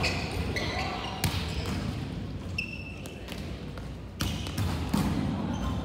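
Volleyballs being hit and bouncing in a large, echoing sports hall: sharp smacks about a second in and twice near the end, with a few short high squeaks and distant chatter between.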